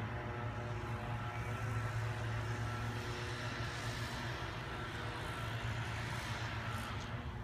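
A motor vehicle running: a steady low hum with several steady tones above it, and a rushing hiss that swells in the middle.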